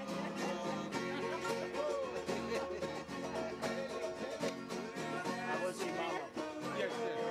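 Men singing a song together to a strummed acoustic string instrument with a steady beat.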